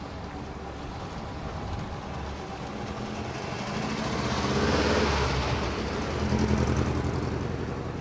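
A car driving past, its engine and tyre noise building to a peak about five seconds in and then fading.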